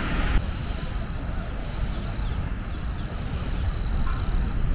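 Steady high-pitched insect chirring starting about half a second in, over a low rumble of wind on the microphone.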